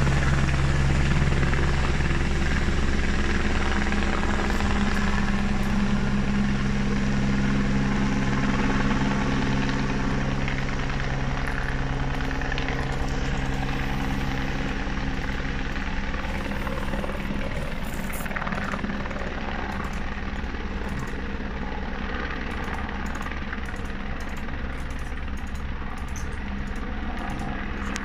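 Helicopter in flight with a steady rotor chop and engine hum, slowly fading as it flies away.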